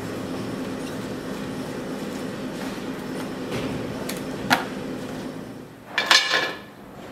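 Steady low workshop hum with a single sharp click, then near the end a wrapped steel motorcycle rim dropped onto a pile of other rims, clattering briefly with a short metallic ring.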